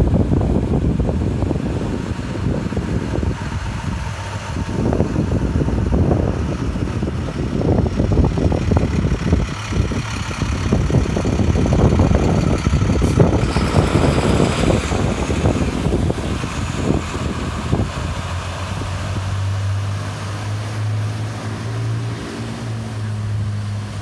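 Wind buffeting the microphone over cars and a Jeep wading through street-deep floodwater, with water washing and splashing. Near the end a large truck's engine hums steadily.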